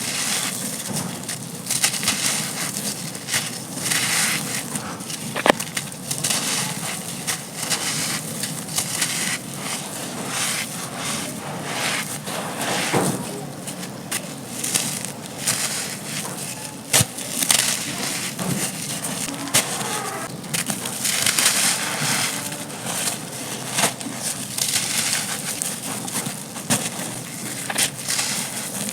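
Dry, gritty black sand-cement chunks crumbling and crunching, a dense steady crackle with an occasional sharper snap.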